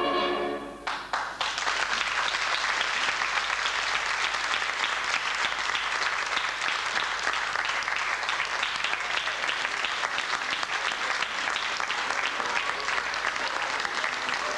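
Music ends about a second in, then an audience applauds steadily.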